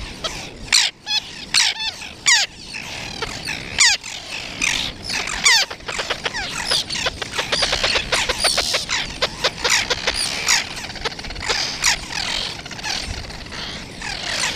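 Several wild birds chirping, whistling and trilling together in a dense, continuous chorus of short, high, sliding notes, with a fast trill about halfway through.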